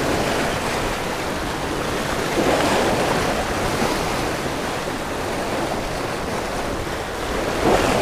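Ocean surf washing and foaming over the rocks just below, swelling a little about two and a half seconds in and again near the end, with wind rumbling on the microphone.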